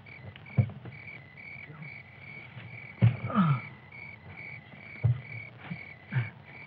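Crickets chirping steadily, a little over two chirps a second. A few short low thumps and soft low sounds sit over it, the loudest about three seconds in.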